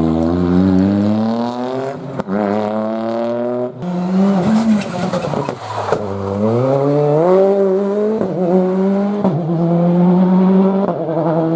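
Rally car engine driven hard, revs climbing steeply and dropping back at each quick gear change, with a brief easing-off about halfway through before it pulls hard up through the gears again.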